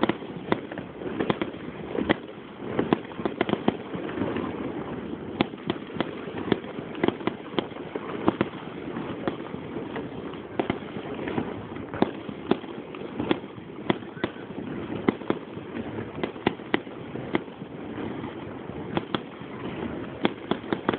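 Fireworks display going off: a dense, irregular string of sharp bangs and cracks, several a second, over a steady background noise.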